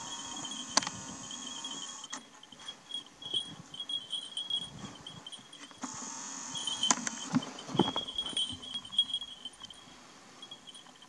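Insects chirping in a high, pulsing trill that comes and goes, with faint rustling and a few sharp clicks or cracks, the clearest about a second in and again near seven to eight seconds in.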